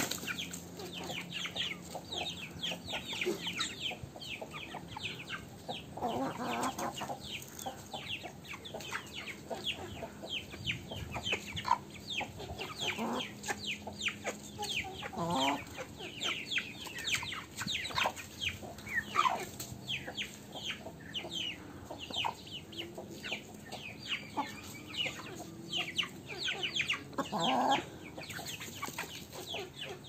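A flock of young Aseel chickens peeping without a break, in many quick falling chirps, with a few louder, lower squawks among them: about six seconds in, around the middle, and near the end.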